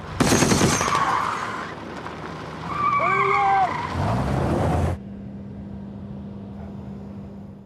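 A war-drama soundtrack: a loud gunshot near the start, taken for a warning shot at an oncoming car, then the car's noise with a brief tyre squeal about three seconds in. After about five seconds only a steady low hum remains.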